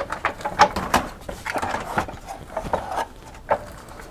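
A Case Labs Mercury S5 PC case being turned round by hand on a desk: a quick run of knocks, clicks and scrapes. It quietens near the end.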